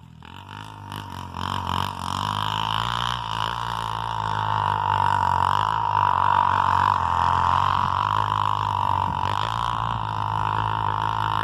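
Single-cylinder trail motorcycle engine running with a steady drone, building up over the first couple of seconds and then holding even.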